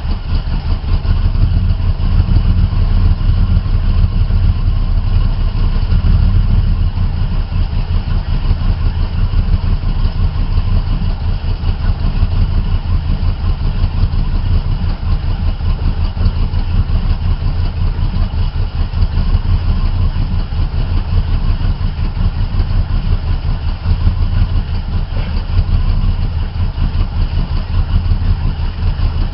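Jeep engine with a Quadrajet carburetor idling steadily while still cold, choke off. It runs evenly with no miss on freshly checked spark plugs and cleaned plug wires.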